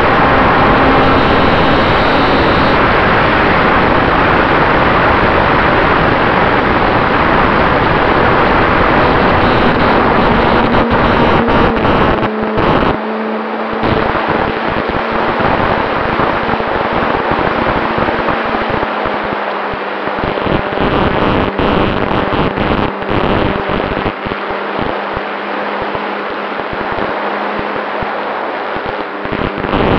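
Radio-controlled Cessna 188 model airplane in flight, heard from its onboard camera: a loud, steady engine drone buried in heavy wind rush on the microphone. About halfway through, the deep rumble thins out and the sound gets a little quieter.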